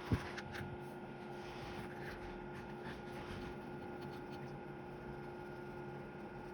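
Small handling noises while working on a handheld radio's circuit board: one sharp tap or knock just after the start, then a few faint clicks and light scraping over the next few seconds, over a steady low hum.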